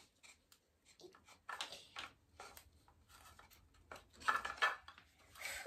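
Wooden toy train track pieces being fitted together and set down on a hard floor: scattered light knocks and clacks.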